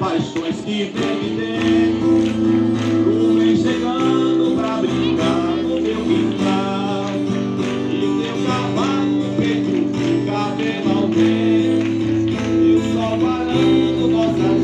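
A man singing to his own strummed acoustic guitar, with held guitar chords under the voice.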